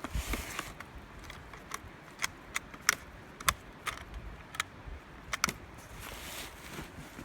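A series of sharp metallic clicks and clacks, about eight spread irregularly over a few seconds, from a firearm being handled and loaded.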